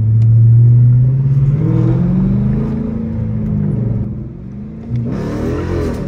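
Dodge Challenger R/T's 5.7 HEMI V8 exhaust, fitted with new quad tips, heard from inside the cabin while driving: the engine note climbs in pitch under acceleration about a second and a half in, then settles. Near the end a brief, louder rushing sound with a wavering pitch rises over it.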